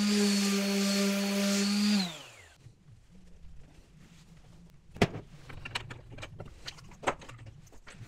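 Electric saw running steadily, then switched off about two seconds in, its motor winding down with a falling pitch. A few sharp knocks and handling sounds follow, the loudest about five seconds in.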